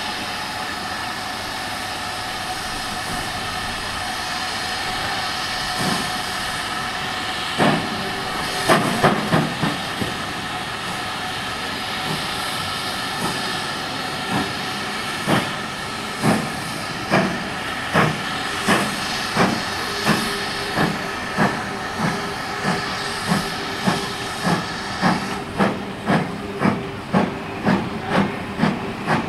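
GWR Manor-class 4-6-0 steam locomotive 7827 Lydham Manor pulling away with its train over a steady hiss of steam. A few heavy, uneven exhaust beats come about eight seconds in. From about fifteen seconds in, regular chuffs quicken to roughly two a second as it gathers speed.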